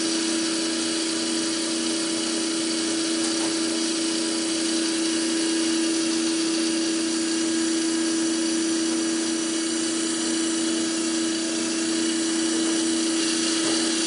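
Electric motor and pump of an FCLCOD diesel fuel filter cart running steadily, pumping fuel through the coalescing filters: a constant hum with a high hiss over it.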